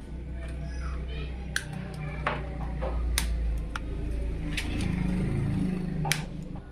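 Scattered sharp clicks and light knocks of computer case parts being handled, about six across a few seconds, over a steady low hum.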